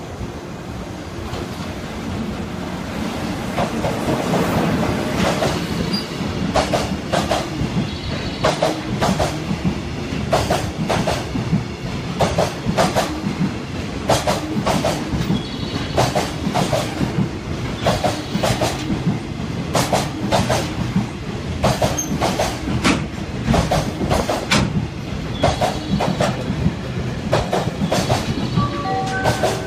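EF66 DC electric locomotive hauling a container freight train past: a rumble that grows over the first few seconds as the locomotive draws near, then the container flatcars rolling by with a steady clickety-clack of wheels over rail joints. The clacks come in quick pairs, roughly one pair a second, with a faint high wheel squeal at times.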